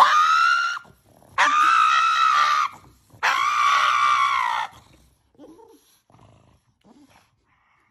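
Pug screaming in protest at having its nails clipped: three long, loud, high-pitched screams, one after another, in the first five seconds.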